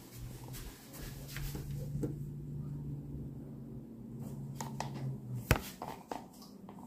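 A steady low hum that cuts off a little past five seconds in, followed by a sharp click, with light handling clicks throughout.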